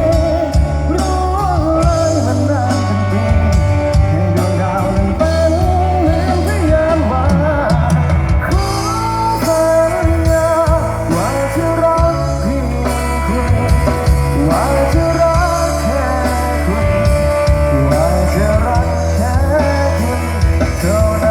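A band playing a Thai rock-pop song: a singer holding long notes with vibrato over bass and drums. The band gets fuller and brighter about eight seconds in.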